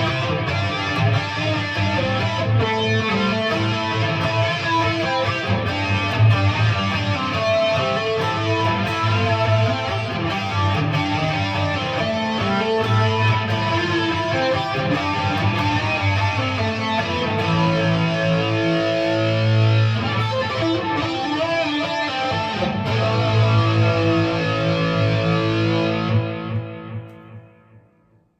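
PRS SE Hollowbody II electric guitar through a Peavey Vypyr modelling amp on its 6505 high-gain setting, playing a distorted riff with a flanger effect on. The playing stops near the end and the last notes die away.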